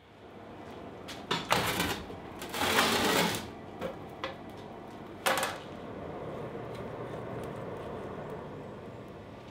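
Clattering and scraping of metal being handled at a coal forge, then a few separate knocks. A steady rushing noise follows.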